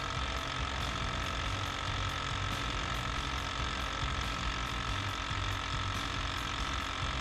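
Replacement electric vacuum pump for a 7.3 Powerstroke diesel running steadily with an even whine, still pulling vacuum on the reservoir canister and not yet shut off.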